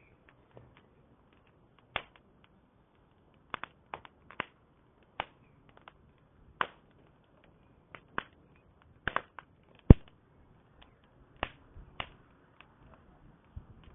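Campfire crackling: burning wood giving irregular sharp pops and snaps, roughly one a second, the loudest about ten seconds in.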